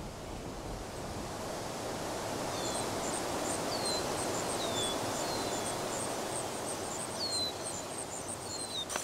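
Outdoor nature ambience: a steady wind hiss. From about two and a half seconds in, birds chirp in short falling notes about once a second over a high, regular ticking.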